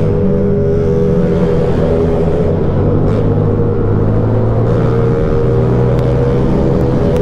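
Motorcycle engine running at a steady cruising speed, heard from the bike itself, its note holding even.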